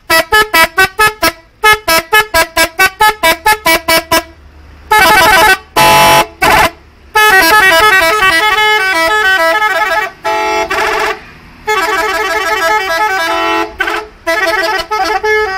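Five-trumpet telolet musical horn played by hand as a tune: a run of short quick toots, about five a second, then longer held chords and a fast sequence of changing notes.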